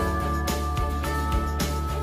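Background music: an instrumental track with held melody notes over a steady beat of about two a second.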